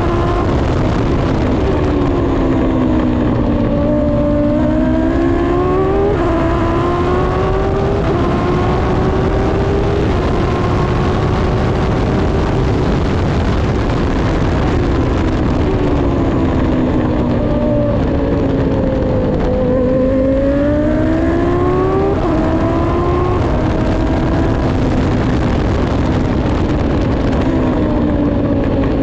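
High-revving race car engine at full effort on a circuit lap. The revs repeatedly fall away and climb again as it brakes into corners and accelerates out, with sudden pitch steps at gear changes.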